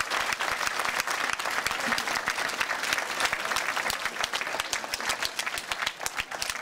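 Audience applauding: many people clapping steadily in a standing ovation.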